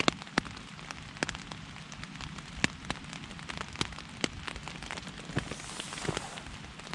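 Rain falling on a tent, heard from inside: a steady hiss of rain on the fabric with many irregular, sharp taps of single louder drops.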